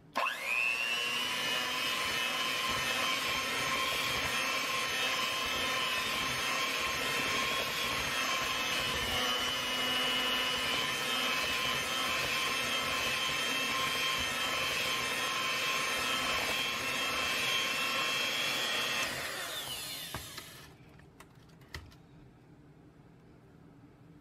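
Electric hand mixer switched on, its motor whining up to speed, then running steadily as the beaters churn thick sweet potato pie filling. About 19 seconds in it is switched off and the whine falls away, followed by a few faint clicks.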